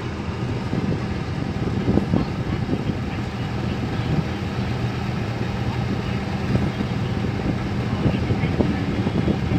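City road traffic heard from a moving vehicle: a steady engine hum under the general noise of buses and cars, with a few brief louder sounds from passing traffic.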